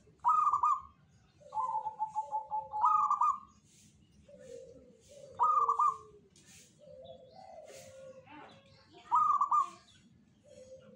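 Caged zebra dove (perkutut) singing its cooing song. Loud phrases of quick staccato coos come four times, and one is a longer rapid run. Softer, lower coos fall in between.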